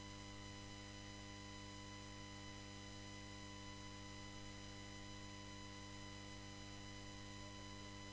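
Faint, unchanging electrical hum and buzz: a low mains hum with a stack of higher steady tones over a light hiss, the noise of the live-stream's sound system with no one talking.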